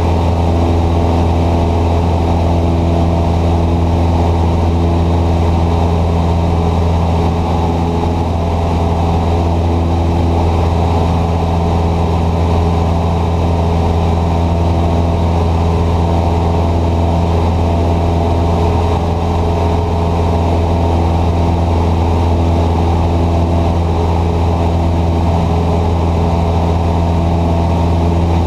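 Cessna 150's Continental O-200 four-cylinder engine and propeller droning steadily in cruise flight, heard from inside the cockpit as a loud, even low hum.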